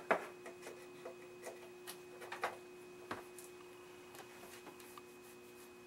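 Sharp clicks and small knocks of a type 80 rectifier tube being fitted into its socket on a Philco 60 radio chassis, with hands on the metal chassis. The two loudest clicks come at the start, followed by lighter taps for about three seconds. A faint steady tone sounds underneath.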